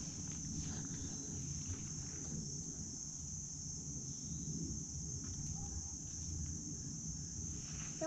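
Steady high-pitched insect chorus, with a low rumble underneath.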